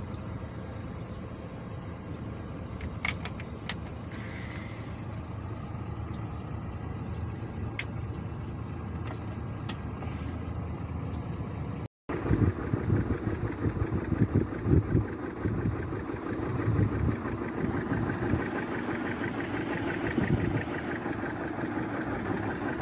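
Dust-storm wind rushing steadily, with a few sharp clicks. After a brief cutout about halfway through, it comes back louder, buffeting the microphone in low, rumbling gusts.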